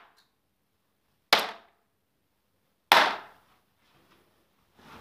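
Two darts striking a plastic electronic dartboard, about a second and a half apart, each a sharp knock that dies away quickly.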